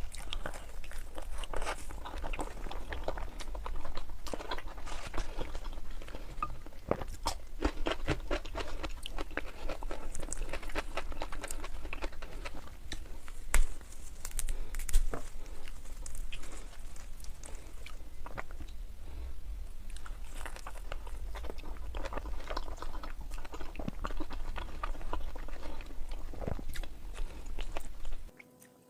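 Close-miked chewing and crunching of food, typical of eating Kayseri yağlama, with a couple of louder bites about halfway through. The sound cuts off abruptly just before the end.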